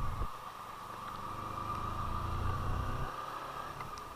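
Kawasaki Versys-X 250 parallel-twin engine running at low road speed, heard from a bike-mounted camera, with a steady high hum over it. The low engine note thins at the start, picks up again, and drops away about three seconds in.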